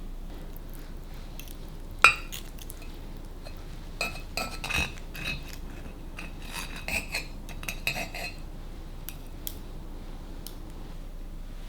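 Cutlery and dishes clinking: one sharp, ringing clink about two seconds in, then a run of lighter clinks and taps from about four to eight seconds in.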